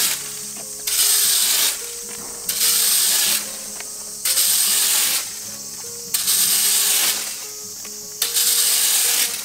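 Rake with a fan of thin tines scraping dry leaves and twigs across a rough road surface, about six even strokes, each a short rasping sweep. Faint background music underneath.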